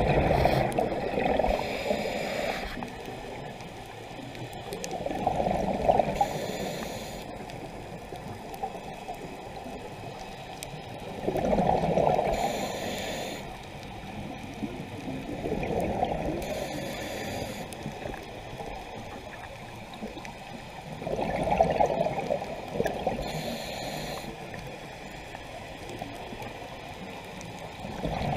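Scuba diver breathing through a regulator underwater: a gurgling rush of exhaled bubbles about every five seconds, each breath with a short hiss from the regulator.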